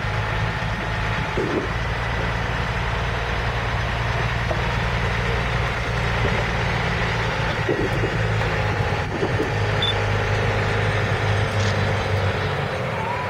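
Heavy semi truck's diesel engine running at low speed with a steady, deep, even hum as it slowly pulls a lowboy trailer loaded with a steam locomotive.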